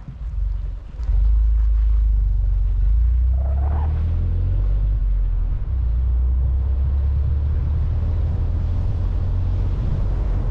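Steady low rumble of a car driving on the road, with a brief dip in the first second.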